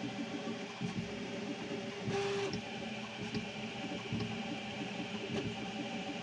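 Original Prusa Mini 3D printer at work: its stepper motors whirring in changing tones as the print head moves, over a steady hiss, with a brief louder whine about two seconds in.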